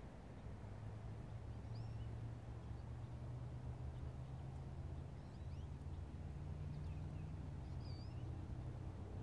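Small birds chirping now and then over a steady, low engine hum from a distant motor.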